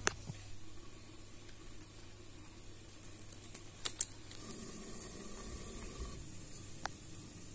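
Food sizzling quietly in a cooking pan, with several sharp clinks, the loudest pair about four seconds in.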